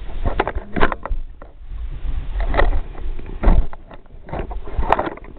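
Handling noise: a low rumble of the camera being moved by hand, with irregular clicks and knocks of plastic Lego vehicles being handled.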